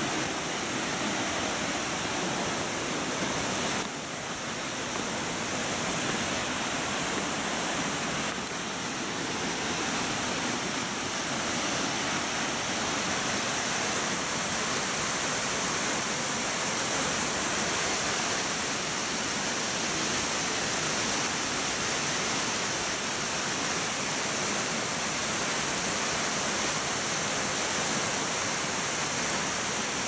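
Nunobiki Falls pouring down a rock face into its plunge pool: a steady, even rush of falling water.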